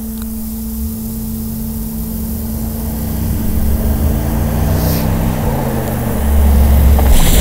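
Mercedes-AMG G 63's twin-turbo V8 accelerating hard, its pitch climbing and dropping through gear changes as it gets louder. Near the end a loud rushing hiss of water spray joins it as the tyres reach the wet surface.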